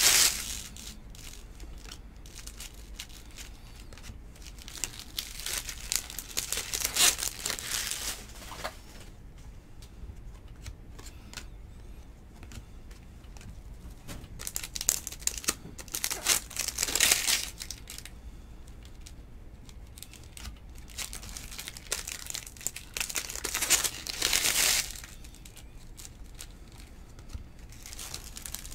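Foil wrappers of Topps Stadium Club trading-card packs crinkling and tearing as the packs are ripped open, in three spells of a few seconds each. Between them come light ticks and rustles of cards being flipped through by hand.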